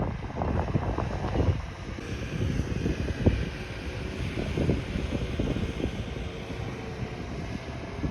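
Outdoor wind rumbling and buffeting on the microphone, with irregular low thumps and one sharp knock a little over three seconds in.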